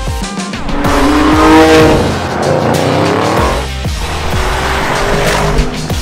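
Music with a heavy, regular beat mixed with a sports car engine revving, rising in pitch about a second in.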